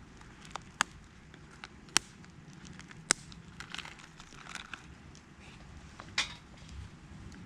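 Small wood campfire crackling: four sharp pops spaced through the few seconds, with fainter snaps and ticks between them.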